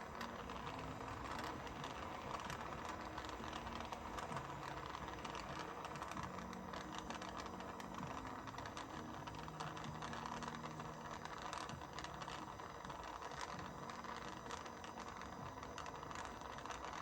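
Jeweller's soldering torch flame hissing steadily as it heats a ring's butted seam to flow medium solder into the joint, with faint crackles.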